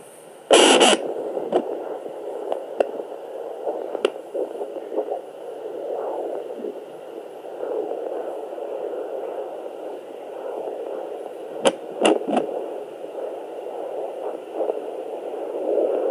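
Sonoline B fetal Doppler's speaker: a loud scratchy scrape as the probe goes onto the belly about half a second in, then steady whooshing static broken by a few sharp clicks. The whooshing and clicks are the Doppler picking up a 12-week fetus kicking and swimming.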